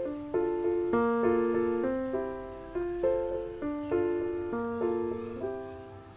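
Background music: a gentle piano tune, with notes and chords struck about once or twice a second, each fading away after it is struck.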